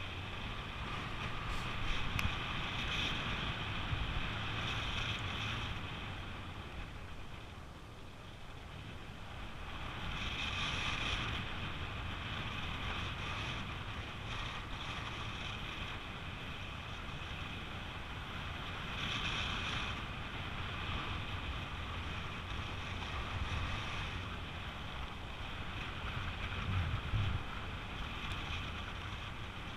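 Steady wind rush on the microphone of a paraglider in flight, swelling and easing every few seconds.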